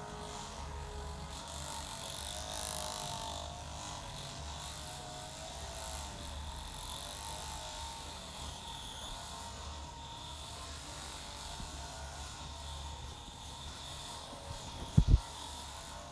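Steady low hum, broken about fifteen seconds in by two quick, loud, low thumps in close succession.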